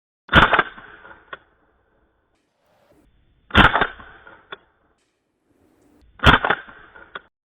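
Umarex Beretta M9A3 CO2 BB pistol firing three short full-auto bursts about three seconds apart, each a quick cluster of sharp cracks from the gas blowback action. A faint single tick follows about a second after each burst.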